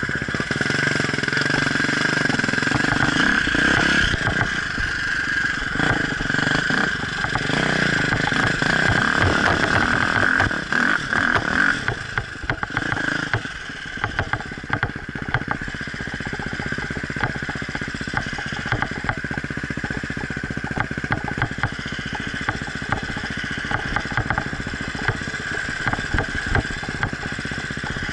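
Off-road motorcycle engine running and revving, louder through the first dozen seconds, then running on at a lower, steadier level.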